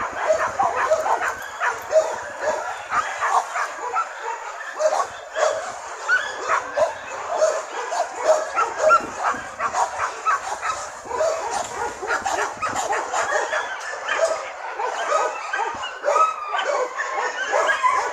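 A dog whimpering and yipping over and over, short high calls coming several times a second.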